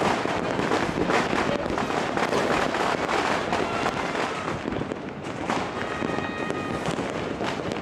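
Many fireworks and firecrackers going off at once: a dense, continuous crackle of pops and bangs, with no single bang standing out. A thin steady whistle comes through briefly about six seconds in.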